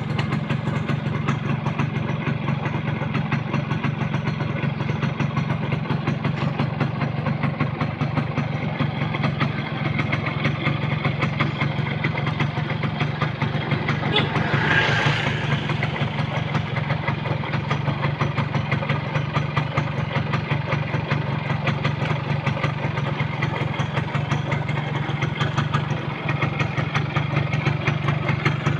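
Yamaha F1ZR's single-cylinder two-stroke engine idling steadily as it warms up after months standing unused, with a short rise in hiss about halfway through.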